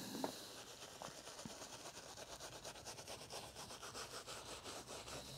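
Soft-bristled detailing brush scrubbing interior cleaner into a leather car seat bolster, a faint, steady run of quick back-and-forth brushing strokes as the cleaner foams up.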